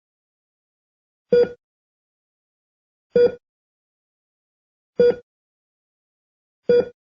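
Heart rate monitor beeping: four short, evenly spaced beeps, one about every 1.8 seconds, with silence between.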